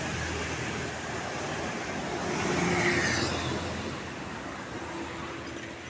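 Road traffic noise as a vehicle passes close, rising to its loudest about three seconds in and fading after.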